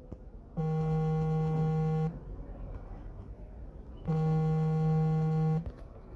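Smartphone alerting to an incoming call: two steady, low buzzing pulses about a second and a half each, two seconds apart.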